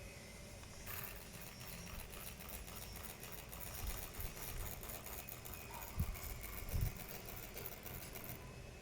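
Laptop cooling fan making a fast, even ticking rattle, the fan noise of a faulty ThinkPad Yoga S1 fan. It starts abruptly about a second in and stops near the end, with a few low knocks in between.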